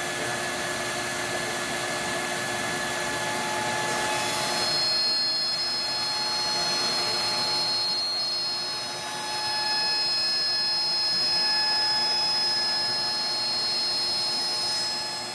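AVID CNC router spindle driving a Slab Slayer surfacing bit in a facing pass across an aluminum cylinder head, milling the warped gasket face flat. A steady whine with several high tones over a rush of cutting noise; the high tones strengthen about five seconds in.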